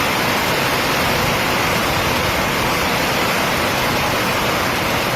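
Loud, steady rush of fast-flowing floodwater from a dam breach.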